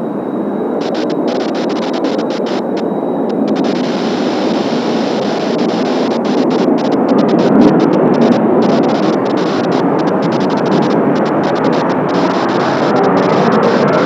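Jet engine roar from Kawasaki T-4 jets of the Blue Impulse team, a broad, rushing noise that grows louder to its peak about halfway through and stays loud.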